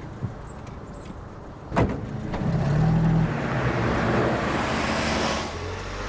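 Car driving, engine and road noise. A single sharp knock comes about two seconds in, and the road noise swells after it, then eases slightly near the end.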